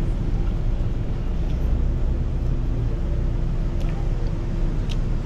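Steady low rumble of a vehicle running, with a faint steady hum that fades out about four seconds in, and a few faint light clicks.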